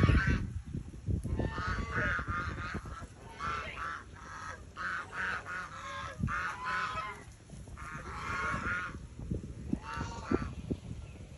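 Domestic geese honking in repeated short bursts of rapid calls, about seven bursts with brief pauses between.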